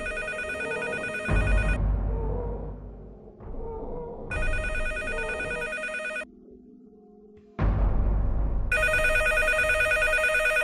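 A telephone ringing three times, each trilling ring about two seconds long with a gap of about two and a half seconds between rings, over a low droning music bed with deep swells.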